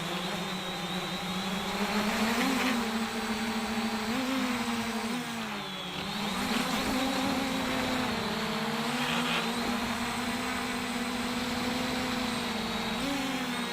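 JJRC X1 quadcopter's motors and propellers whining steadily, heard through the action camera mounted on the drone. The pitch dips and climbs back a few times as the throttle changes.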